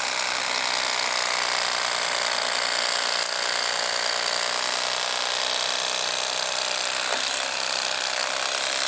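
Cordless Bubba Blade electric fillet knife running steadily, its battery motor driving the reciprocating serrated blades through a fish as it is filleted.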